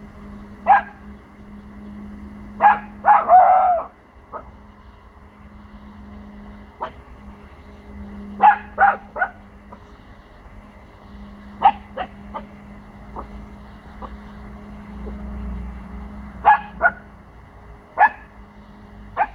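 Pomsky puppy barking: short sharp barks, singly and in quick pairs and threes, with pauses of a few seconds between them and a longer run of barks about three seconds in. It is territorial alarm barking at unfamiliar noises from next door.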